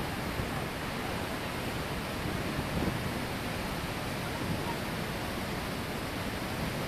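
The Iguaçu Falls pouring in a steady, unbroken rush of falling water.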